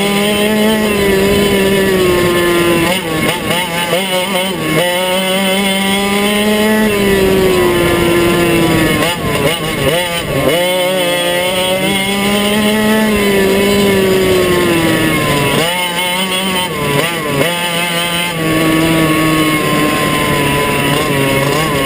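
Two-stroke racing kart engine, heard from on board the kart, running at high revs. Its pitch holds high and sags slowly, then breaks up and wavers briefly several times, around a few seconds in, near the middle and about three quarters through.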